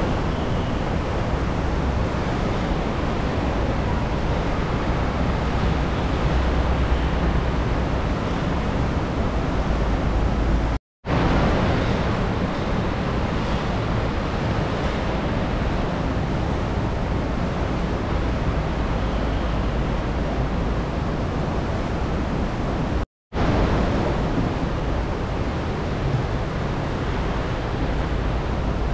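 Steady wind rushing over the microphone with a deep low rumble. It cuts off abruptly twice, about eleven and twenty-three seconds in.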